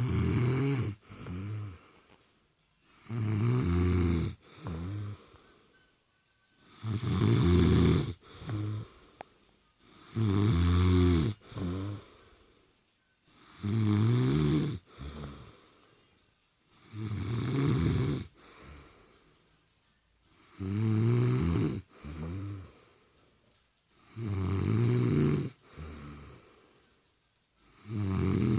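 A woman snoring in bed in a steady rhythm, about one snore every three and a half seconds. Each loud snore is followed by a shorter, quieter one.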